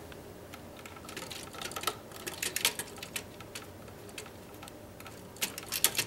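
Small, irregular clicks and scrapes of hands handling stiff 12-gauge copper ground wires and a plastic wire nut at an electrical box, with a cluster of clicks about two and a half seconds in and another near the end.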